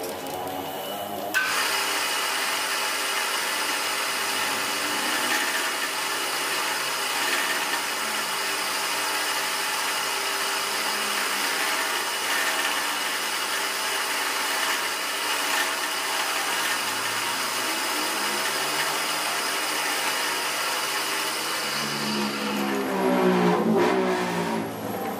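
A drill press spindle starts about a second in and turns a single-point cutter held in the drill chuck, which machines the crown of an aluminium piston. The motor and cutting make a steady noise. Near the end the sound changes to gliding tones as the spindle slows to a stop.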